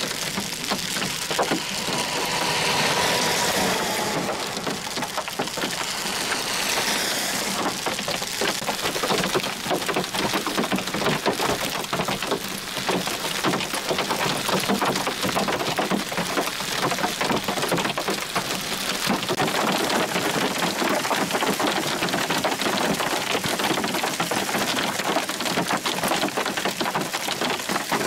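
Quarter-sized hail pelting the road, grass and puddles in a dense, steady clatter of small impacts. A few seconds in, a passing vehicle's tyres hiss on the wet highway and fade.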